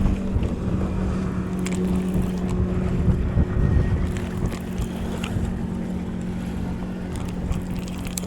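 A motor hums steadily at a constant pitch under wind rumble on the microphone, with a few light clicks scattered through.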